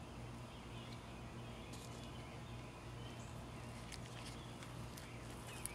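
Faint background ambience: a low steady hum with a few light clicks scattered through it.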